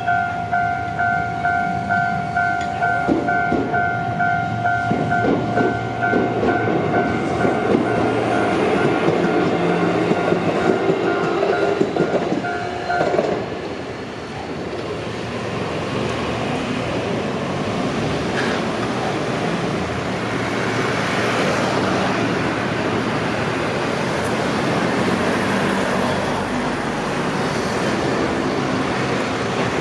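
Level-crossing warning bell dinging rapidly and evenly while a Shizuoka Railway A3000-series electric train runs past with rumbling and wheel clatter. The bell cuts off about 13 seconds in, and a steady running rumble carries on.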